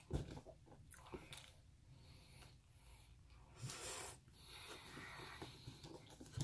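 Quiet chewing of a soft almond cookie: faint wet mouth clicks and smacks, with no crunch, and a breath a little past halfway.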